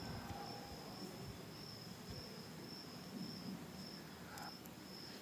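A cricket chirping: a high, steady trill pulsing a few times a second. Under it is a faint rustle of yarn and hands working a crochet hook.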